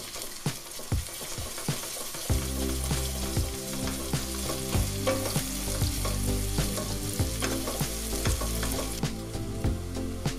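Sausage chunks and onions sizzling in a stainless steel pot while a wooden spoon stirs them, with irregular scrapes and knocks of the spoon against the pot.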